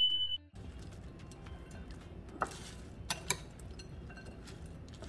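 Background music with a high held tone that cuts off about half a second in. After it comes a soft steady rustle of a bhel puri mix of puffed rice, sev and papdi being stirred in a bowl, with a few sharp clicks.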